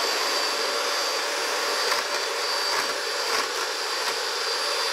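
A Cuisinart 5-speed electric hand mixer running steadily, its beaters whipping egg yolks in a bowl, a constant motor whir with a thin high whine on top.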